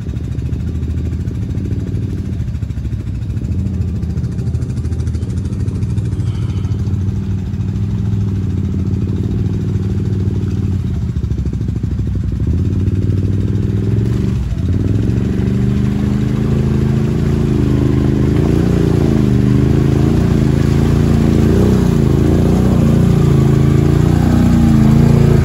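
Can-Am ATV engines running as the quads drive through mud, growing steadily louder as they come closer. From about halfway on, the engine note rises and falls with the throttle.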